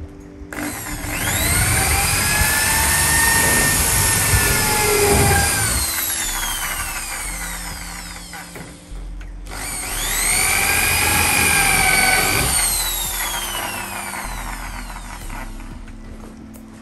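Corded electric drill run twice, each time speeding up to a steady high whine and then slowly winding down.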